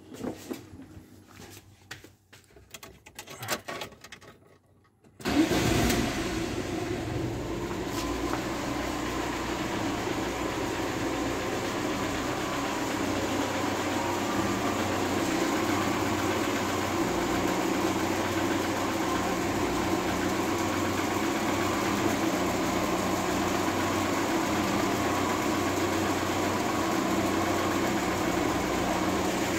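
A car door handle clicks and a few light knocks follow, then about five seconds in the car's engine starts and settles into a steady idle.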